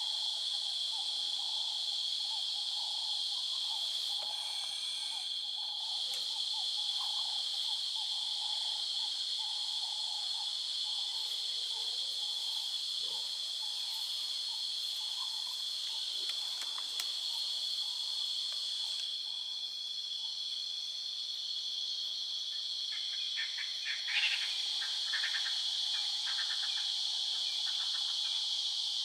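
Dusk chorus of insects: a steady high-pitched trilling, with a lower, pulsing call repeating underneath through the first half. Near the end comes a short burst of rapid clicking calls.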